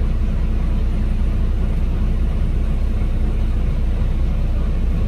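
Steady low rumble of a bus running, heard from inside the passenger cabin.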